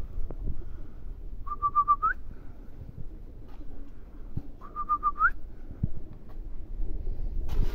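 A person whistling to call young pigeons down to the loft. The call comes twice, each time four quick short notes on one pitch and then a note sliding upward. A low rumble on the microphone runs underneath, and a short rustle comes near the end.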